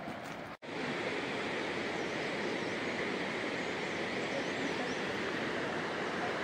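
Steady rush of a fast mountain river running high with muddy water, after a brief cut to silence about half a second in.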